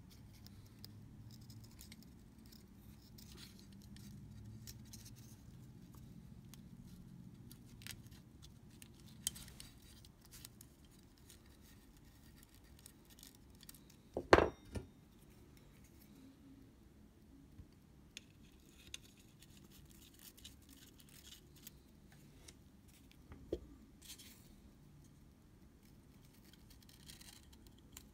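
Small tools and parts handled during close-up camera shutter repair: faint scattered clicks and taps, with one sharp, much louder click or knock about halfway through, followed by two smaller ones.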